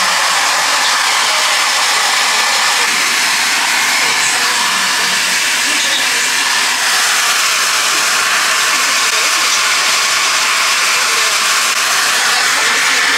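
Handheld hair dryer running, blowing a loud, steady rush of air over a wet dog's coat, with a faint steady whine from its motor.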